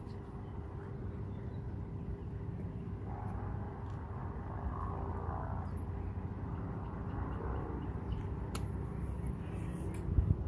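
Steady low outdoor rumble with a faint steady hum, a sharp click about eight and a half seconds in and a louder knock near the end.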